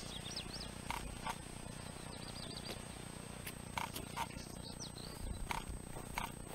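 Small birds chirping now and then over the faint steady trickle of a small brook, with a few light knocks and rustles as a man stands up and handles a shirt close by.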